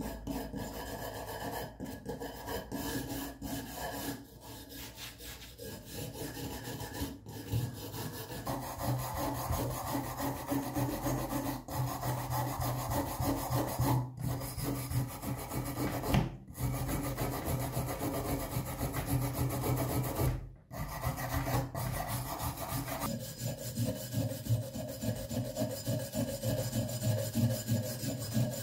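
Hand scraper scraping flaking paint and rust off an old pipe wrench's handle and jaw in quick, repeated rasping strokes. The sound drops out briefly three times in the middle.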